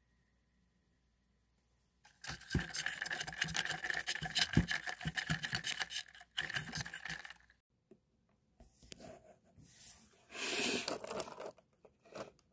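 Crinkling and clicking as plastic and paper food packaging is handled, lasting about five seconds after a short silence. Scattered small knocks and a brief rustle follow near the end.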